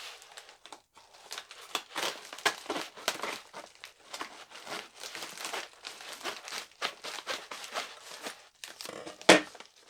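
Mail packaging being handled and opened: irregular crinkling, rustling and tearing, with one louder sharp knock near the end.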